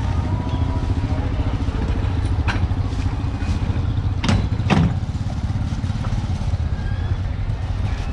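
Street-market traffic noise, mostly small motorcycle engines running as motorbikes pass, with faint voices. A few sharp clanks stand out, two of them close together about four and a half seconds in.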